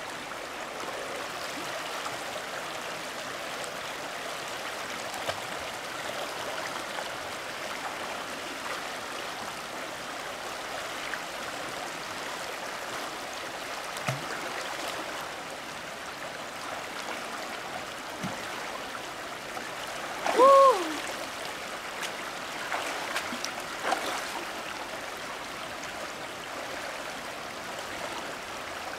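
Shallow river water rushing steadily over stones, with small splashes and knocks as hands and legs move through it. About two-thirds of the way through, a single short call that rises and falls in pitch stands out above the water.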